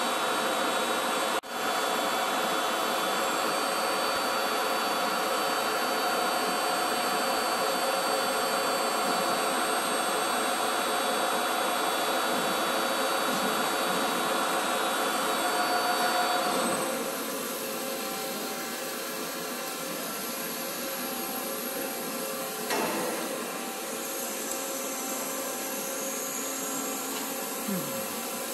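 SNK BFR-3500 CNC horizontal boring mill running under power: a steady machine whir with faint high whines, which becomes quieter about seventeen seconds in.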